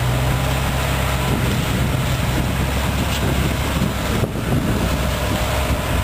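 Case CVX tractor's diesel engine running steadily under load as it pulls a trailed Grimme potato harvester, with the harvester's machinery running along with it. A brief dip comes about four seconds in.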